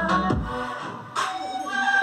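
Music with a steady beat and a melody.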